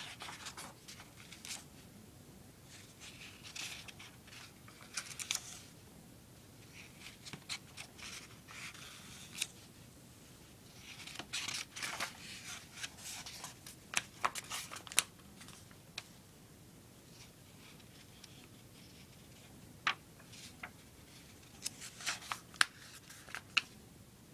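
Paper pages of a thin book being turned by hand: rustling in irregular bursts, with several sharp page flicks and snaps, the crispest ones near the end.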